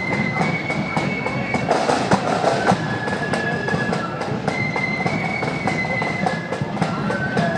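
Marching flute band playing: flutes carrying a tune in held high notes over steady snare and bass drumming.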